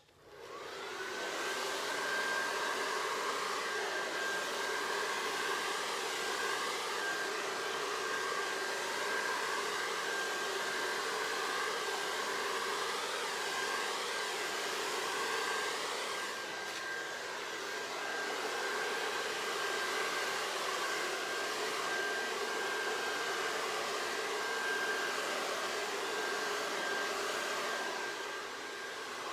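Hair dryer switched on, its motor whine rising to a steady pitch within the first second, then running steadily with a rush of air as it blows fluid acrylic paint across a canvas.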